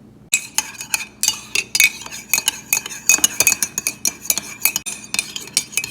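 A spoon clinking rapidly and irregularly against the inside of a mug, as in stirring, with a light ringing on the strikes. It starts about a third of a second in.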